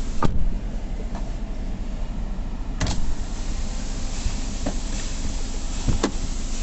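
A door being worked to show its closing noise: a sharp knock about every three seconds over a steady low hum.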